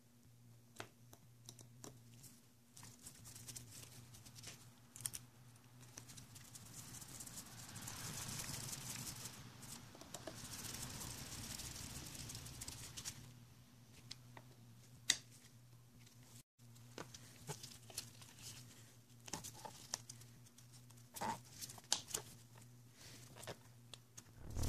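Faint handwork on a motorcycle clutch master cylinder: scattered small metal clicks and the soft rustle of nitrile gloves, with a longer stretch of rustling and scraping about a third of the way in as a screwdriver works the reservoir cover screws. A low steady hum sits underneath.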